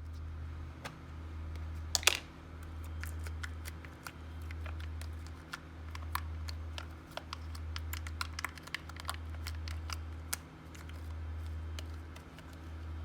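Slime being squeezed and worked by hand, giving irregular sticky clicks and pops, with a burst of pops about two seconds in. Under it runs a low hum that swells and fades about every second and a half.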